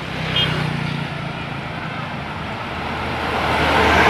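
Tour bus approaching on the road, its diesel engine hum and tyre noise growing steadily louder. There is a short high squeak about half a second in.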